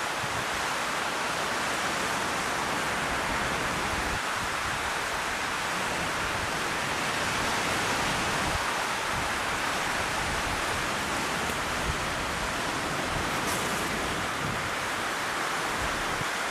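Steady rushing noise of sea surf on the shore, with irregular low rumbling underneath.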